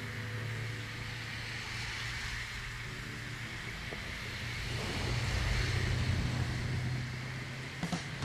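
Car engine running steadily with a low drone, getting louder about five seconds in and easing off again.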